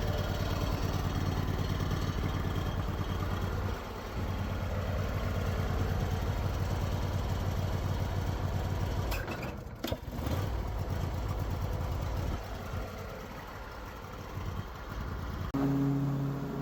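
Riding lawn mower's gas engine running with an even firing pulse. A few sharp clicks come about nine to ten seconds in, and the engine is quieter after that. Music starts suddenly near the end.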